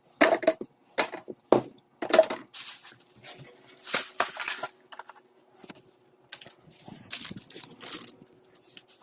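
Irregular rustling and crinkling of plastic packaging, with knocks as items are handled. A faint steady hum runs underneath.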